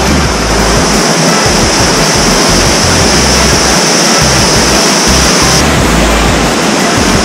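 Waterfall and cascading stream rushing steadily through a narrow rock gorge, a loud, even roar of water, with an irregular low rumble underneath. Its brighter hiss drops away a little over halfway through.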